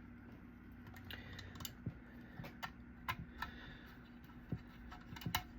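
Light, irregular clicks and taps of small plastic and metal case parts being handled and fitted together, faint, with a low steady hum underneath.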